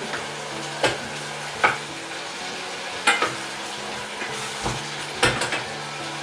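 A spoon stirring a frying tadka for dal fry, cumin and garlic in hot oil, which sizzles steadily. The spoon knocks sharply against the pan several times.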